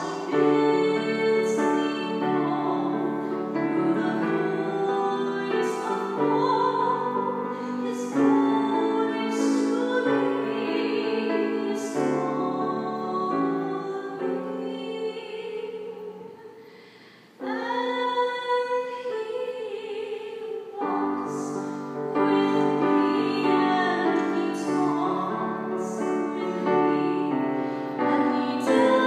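Classical-style music with an operatic singing voice over sustained accompaniment, held notes changing every second or two. It fades almost away about seventeen seconds in, then a new phrase starts abruptly.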